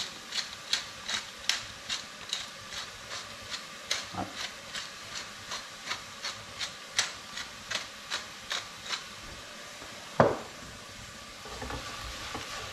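Wooden spoon stirring sliced leeks in a saucepan, scraping the pan in regular strokes about two or three a second, over a low sizzle as the salted leeks sweat down. The strokes stop after about nine seconds, and a single louder thud follows.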